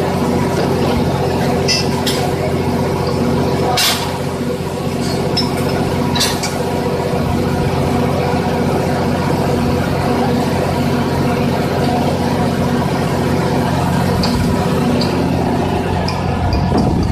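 An engine running steadily at a constant speed, with several sharp metal clinks from tools on a pipe vise, the strongest about two, four and six seconds in.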